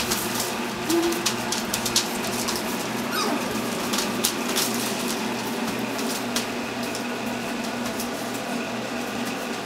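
Standard poodle puppies' paws patting and crinkling newspaper in short irregular clicks and rustles, over a steady low hum.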